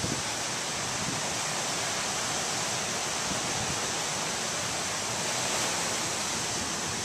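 Steady, even rushing hiss of a rough, storm-driven sea breaking on the beach, with no wind buffeting the microphone.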